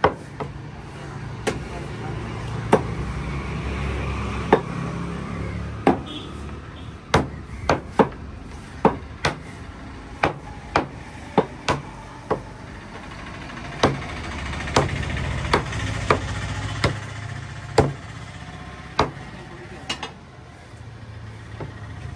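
Cleavers chopping fish on wooden chopping blocks: sharp, irregular strikes roughly one a second. A vehicle engine rumbles in the background and swells twice.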